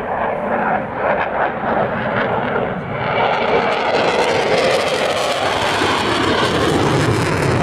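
Eurofighter Typhoon's twin EJ200 turbofan jet engines in a low fly-by, a loud steady rush of jet thrust. The noise fills out and grows louder about three seconds in as the jet comes nearer.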